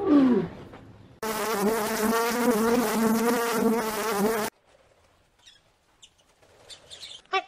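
A flying insect buzzing loudly and steadily for about three seconds, starting and stopping abruptly. A short falling call comes just before it, and short repeated honking calls begin near the end.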